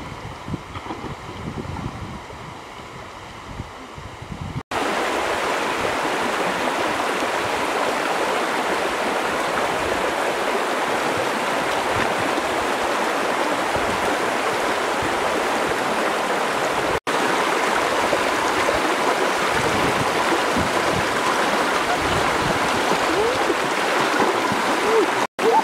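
Shallow river water flowing with a steady rush, with splashing from wading through it. The first few seconds are quieter, with a low rumble of wind on the microphone, before the rush of water comes in suddenly about five seconds in.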